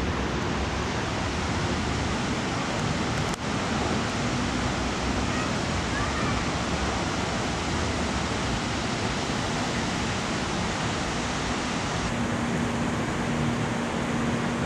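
Steady rushing of a large artificial waterfall cascading over a wide ledge. A faint low steady hum joins it about twelve seconds in.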